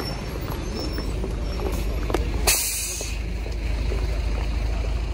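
Road traffic running past with a steady low rumble, a city bus close by. About two and a half seconds in comes a short, loud hiss of air, typical of a bus's air brakes.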